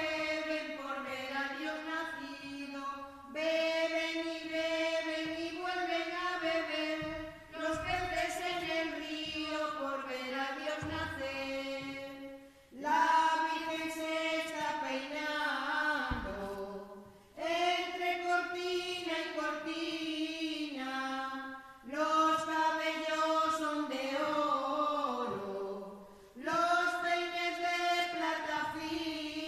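Women's church choir singing a carol unaccompanied, one melody line in phrases of about four seconds with short breaks for breath between them.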